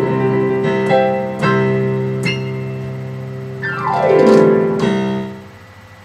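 Digital piano playing the closing bars of a song: several struck chords, a quick downward run about three and a half seconds in, then a final chord that dies away near the end.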